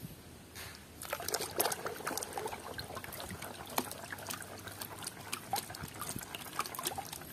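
Water splashing and trickling in a plastic tub as a toy is rinsed by hand, a quick run of small drips and splashes starting about a second in.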